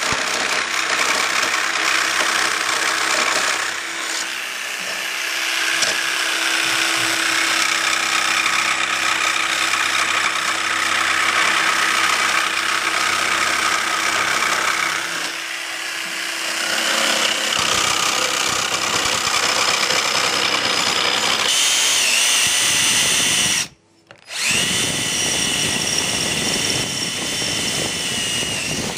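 Electric jigsaw cutting through a metal plate, running steadily. About three-quarters of the way through it gives way to a cordless drill whining at a steady speed as it bores into the plate, stopping briefly and starting again.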